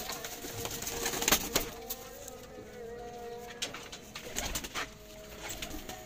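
Sialkoti domestic pigeons cooing, with several sharp clicks and knocks from the loft's metal grille door being handled, the loudest about a second and a half in.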